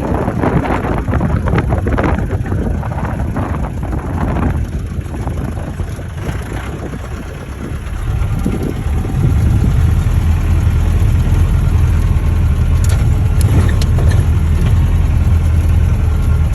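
Off-road vehicle's engine running, with rough wind-like noise over it for the first half; from about nine seconds in a steady, louder low engine drone takes over.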